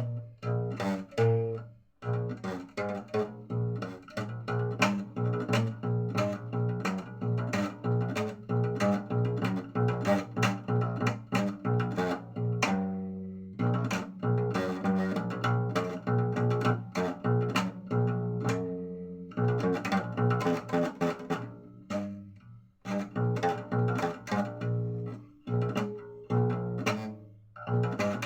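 Instrumental music: a plucked string instrument playing quick successive notes over a low bass line, with a few short lulls.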